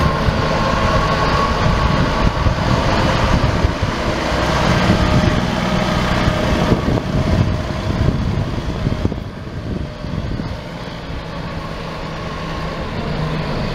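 Volvo F88 tractor unit's diesel engine driving past. It grows louder as the truck approaches, is loudest as it passes about halfway through, then fades as it pulls away.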